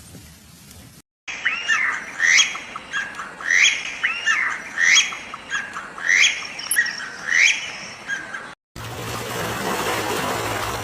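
A bird squawking in a run of loud, short, pitched calls, about one a second. After a cut it gives way to a steady rushing noise.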